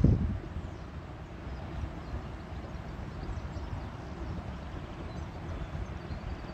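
Wind buffeting the phone's microphone as an uneven low rumble, with a stronger gust right at the start.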